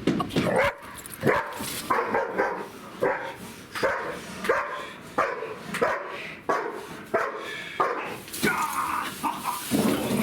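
German Shepherd barking repeatedly in an even rhythm, about one and a half barks a second.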